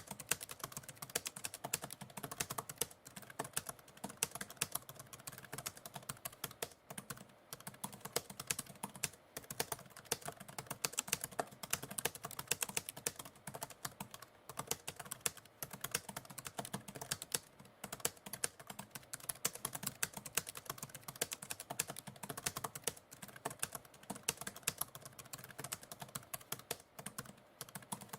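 Typewriter keys clacking in rapid, continuous typing, a dense irregular stream of key strikes.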